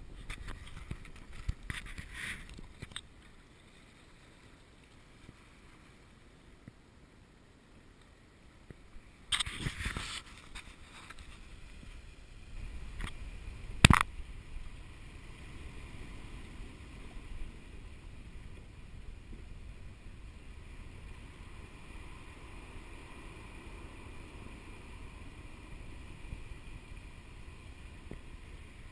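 Water lapping and gurgling around a plastic sit-on-top kayak, with a few brief splashes and one sharp knock about halfway through.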